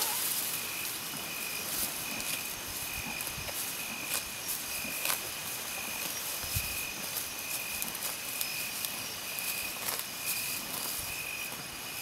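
Night insects chirping in a steady, regular pulse, with a few short sharp snaps as a gaur crops grass.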